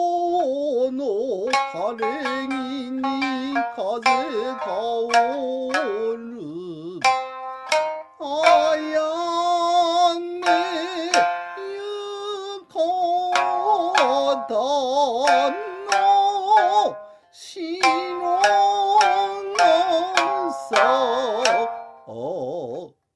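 Nagauta sung to the shamisen: sharp shamisen plucks with a long-held, wavering singing voice over them, broken by a few short pauses.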